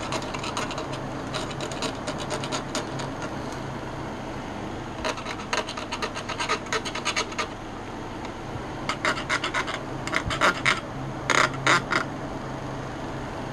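X-Acto hobby knife blade scraping and scratching across a model ship's deck in runs of quick short strokes, with pauses between the runs.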